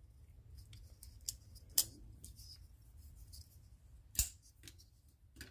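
Sharp metallic clicks of folding pocket knives being handled and laid down on a rubber mat. There are two louder clicks, about two seconds in and about four seconds in, with a few faint ticks between.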